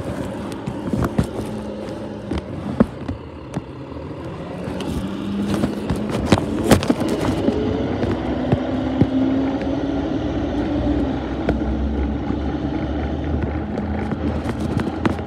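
Garbage truck engine running, rising in pitch and growing louder about a third of the way in, with scattered sharp clicks and knocks.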